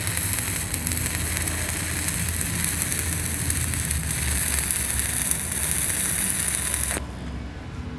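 Stick welding arc from a 3/32-inch 309 stainless-to-carbon electrode on carbon steel plate, crackling and hissing steadily as the rod is weaved side to side on the hot pass. It stops abruptly about seven seconds in.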